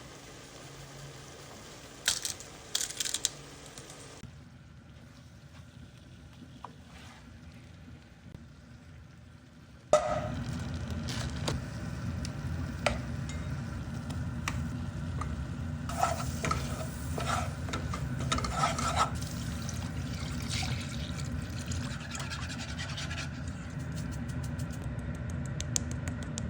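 Cooking sounds: a few sharp utensil clicks, then from about ten seconds in a steady low hum under repeated scraping and stirring of food in a pan.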